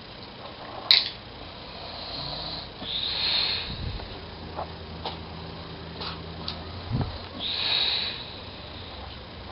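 Elderly man snoring softly in his sleep: hissing breaths every few seconds, with a sharp click about a second in.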